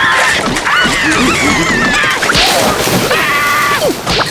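Cartoon voices squeaking and squealing in wordless gibberish, broken by a slapstick crash about halfway through and a short smack near the end.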